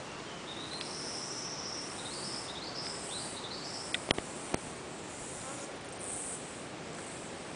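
Forest insects in a steady high chorus, pulsing about once a second, with a bird calling a run of high whistled notes, several rising, over the first few seconds. Three sharp clicks come close together around four seconds in.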